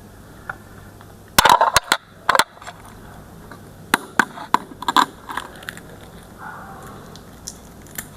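Eggshell being cracked and crushed by hand: a quick run of sharp cracks about a second and a half in, then a second, looser group of cracks around four to five seconds in.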